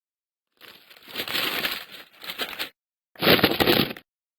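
Rustling, crinkling noise in two stretches of about two seconds and one second, each starting and stopping abruptly.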